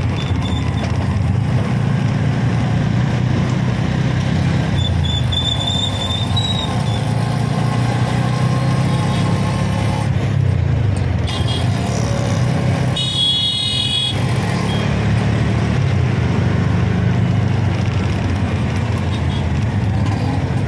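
Auto rickshaw engine running with a steady low drone amid road traffic. A vehicle horn sounds for about a second just past the middle.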